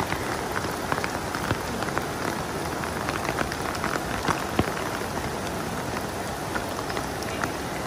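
Steady rain falling on wet grass and puddles, an even hiss with scattered ticks of individual drops.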